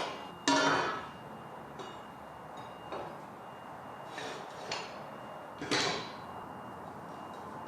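A handful of separate metallic knocks and clanks of steel pieces being handled or tapped during fabrication, each ringing briefly. The loudest comes about half a second in and another near six seconds, with a faint steady high tone underneath.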